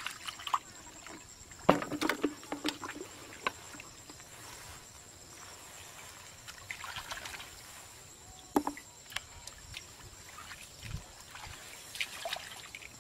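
Hands sloshing and splashing in shallow muddy water while groping for fish, in irregular bursts: the loudest splash about two seconds in, a run of smaller ones after it, and another sharp splash near nine seconds.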